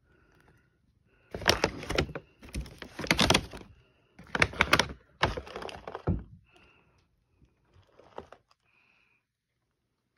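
Plastic cat food bag crinkling and rustling as it is handled, in four loud bursts over about five seconds, then a few fainter rustles.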